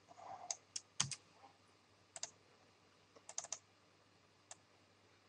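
Faint computer mouse and keyboard clicks, scattered single clicks with a quick run of four about three and a half seconds in.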